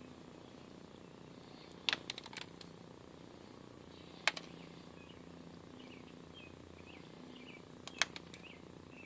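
Light metallic clicks as a keyway broach and its shim are handled: a quick cluster about two seconds in, then single clicks around four and eight seconds.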